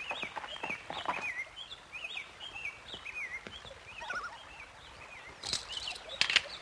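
Forest birds chirping: many short, quick rising-and-falling chirps repeating throughout. There are a few soft knocks in the first second or so, and two sharp clicks near the end.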